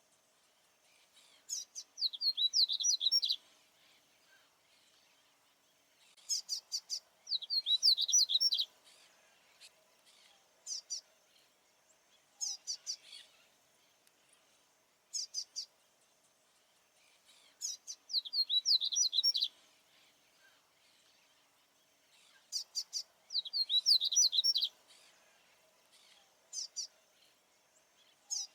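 Male papa-capim baianinho seedeater singing. Bursts of rapid, high, sweeping notes repeat every five or six seconds, with short single call notes between the phrases.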